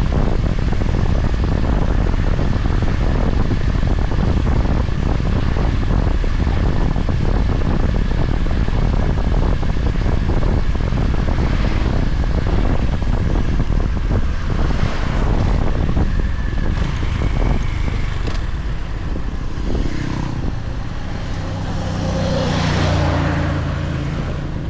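Honda GB350's single-cylinder engine running under way, heavily masked by wind rush on the helmet or bike microphone. About 20 seconds in, the wind eases as the bike slows, the engine's steady low note comes through, and a brief rush swells and fades near the end.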